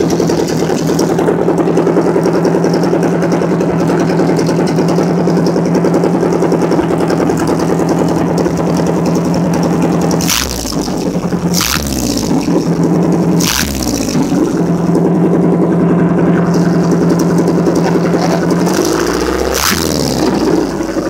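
Freshly rebuilt OMC 3.0 stern-drive engine, a GM-based 3.0-litre inline four, running steadily on its first run after a complete overhaul. In the second half the engine speed dips and rises again three or four times as the throttle is worked.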